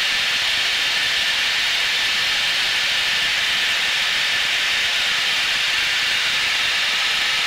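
Steady rushing hiss of cockpit noise inside a Blue Angels F/A-18 jet in flight, air and engine noise holding an even level.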